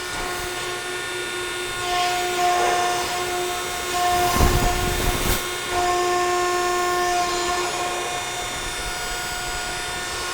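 Ermak CNC hydraulic press brake cycling its ram: the hydraulic pump whine, steady with overtones, rises in strength for a few seconds as the machine works. A couple of sharp clunks come near the middle.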